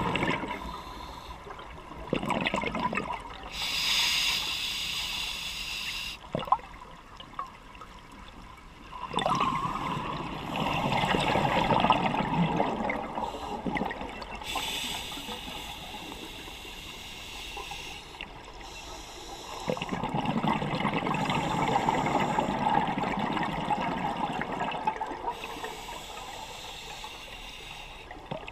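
Scuba diver breathing underwater through a regulator: each slow inhale is a high hiss, and each exhale is a longer rush of bubbles. There are about three breath cycles, a few seconds apart.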